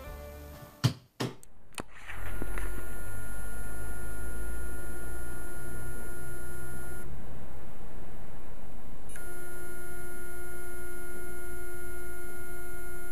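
A dropped hard drive in a USB enclosure, powered up: a few clicks, then a steady high-pitched tone from the drive that stops for about two seconds and starts again. The owner takes this for a read head stuck in the middle of the platters.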